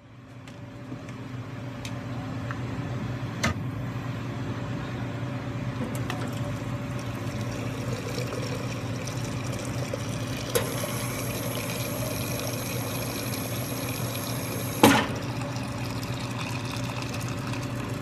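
Near-boiling water running from a coffee machine's hot-water spout into a French press as it fills, a steady pour that builds up over the first couple of seconds. A sharp knock about fifteen seconds in is the loudest moment, with a few lighter clicks earlier.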